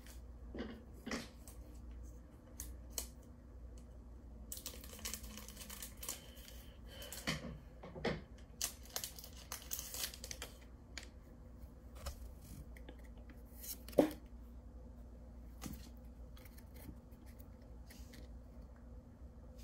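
Pokémon trading card pack being opened and its cards handled: the foil wrapper rustles and crinkles in two spells, with scattered clicks and snaps of cards and packaging, the loudest about 14 seconds in.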